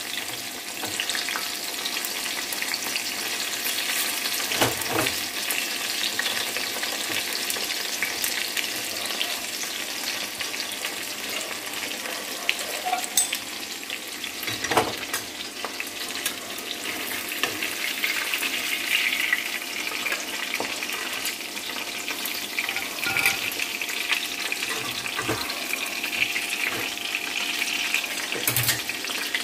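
Batter-coated chicken pieces deep-frying in a metal kadai, the oil sizzling and crackling steadily now that the pieces are browned and done. A few short knocks of a metal slotted spatula come as pieces are lifted out of the oil.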